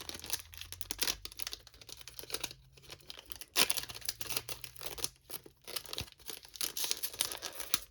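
Foil Pokémon booster-pack wrappers crinkling and crackling as they are handled, in irregular bursts with a louder crackle about three and a half seconds in.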